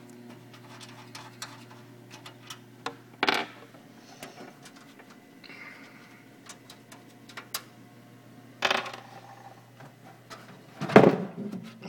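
Steady low vibration hum from a desktop PC case, with small clicks and a few louder knocks and rattles as the case is handled. The owner suspects the vibration comes from the motherboard. The hum cuts out shortly before a loud knock near the end.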